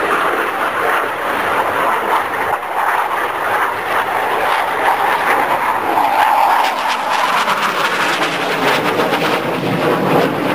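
Jet trainer flying a display pass: a loud, continuous jet engine rush that deepens toward the end.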